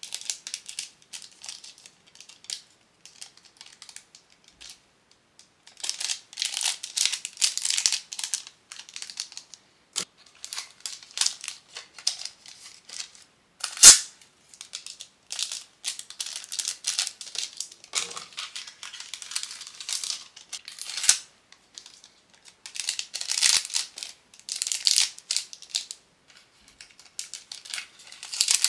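Clear plastic cellophane sleeves crinkling in irregular bursts as pin backing cards are slid into them and handled. A single sharp snap about halfway through is the loudest sound.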